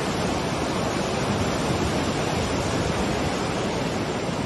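Steady rushing of a river in flood, a fast torrent of floodwater.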